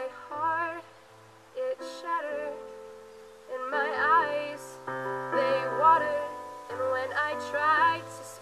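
A woman singing a slow song with vibrato into a microphone, accompanying herself on an Ensoniq MR-76 keyboard with held chords and low bass notes. The voice comes in short phrases with brief breaks.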